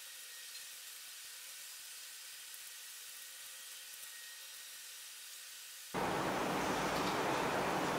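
Faint steady hiss with a faint high hum, then about six seconds in a sudden switch to a much louder, even rushing noise.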